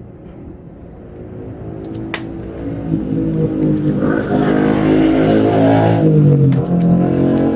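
Motor vehicle engine accelerating, growing louder and rising in pitch, then dropping in pitch near the end as it passes by.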